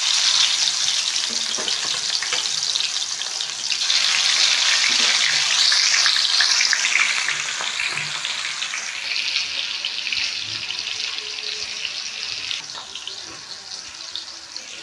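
Marinated fish pieces deep-frying in hot oil in a kadhai: a steady sizzle that is loudest in the middle and grows quieter near the end.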